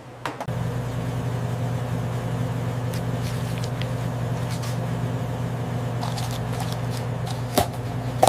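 Car engine idling with a steady low hum, with a short sharp knock near the end.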